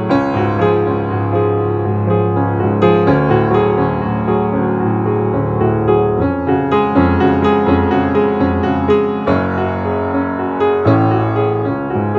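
Grand piano played solo: a continuous flow of sustained chords and melody notes over a low bass, with the harmony changing every few seconds. It is heard close, from inside the instrument by the strings.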